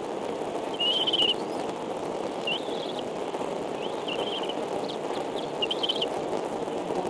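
Bald eagle chicks peeping in short high chirps, about five of them spaced a second or so apart, while begging to be fed, over a steady background hiss.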